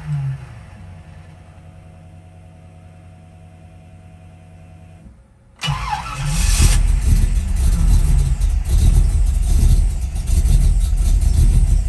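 Cold start of a 1968 Pontiac Firebird's 428 V8 through a MagnaFlow exhaust: the engine's first firing falls away about half a second in, leaving a few seconds of low steady hum. Just past halfway it fires again with a brief rev and keeps running loudly, still cold and needing to warm up.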